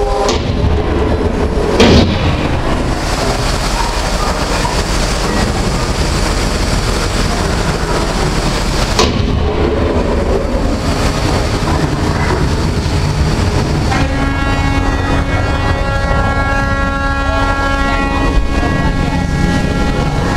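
Theme-park disaster effects: steady rain and rushing-water noise with gas flame bursts, the loudest a sudden blast about two seconds in and another near nine seconds. About fourteen seconds in, a steady droning tone with several pitches joins as the flood of water is released.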